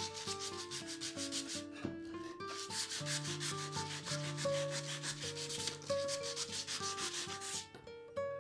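Rapid back-and-forth sanding strokes, several a second, with a short pause about two seconds in, stopping shortly before the end. Acoustic guitar music plays underneath.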